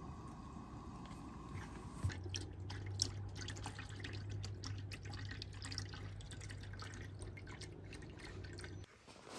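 Water dripping and splashing into a plastic wash basin of dishes, with irregular small drips and clinks, over a low steady hum; the sounds stop suddenly just before the end.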